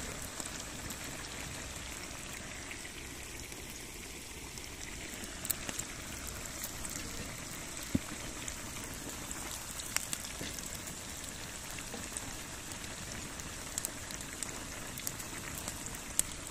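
Pieces of pork fat bubbling and sizzling in a cast-iron cauldron of boiling water and melting lard over a wood fire, with a few isolated sharp pops. The fat is being rendered into lard and cracklings.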